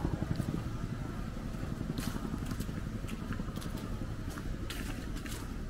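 Footsteps on a pavement strewn with dry fallen leaves, giving short crisp crunches at uneven spacing, over a steady low rumble.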